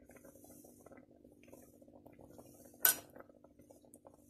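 Faint crackling from the curry cooking in the pressure cooker over a low steady hum, with one sharp metallic clink at the pot nearly three seconds in.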